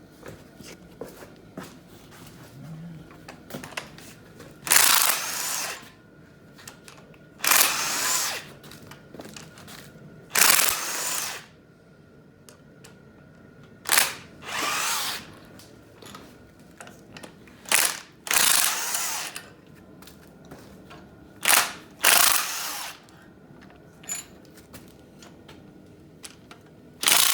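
Handheld power wrench running in short bursts of about a second, about ten in all and some in quick pairs, loosening the cylinder head bolts on a 5.3 LS V8 during teardown.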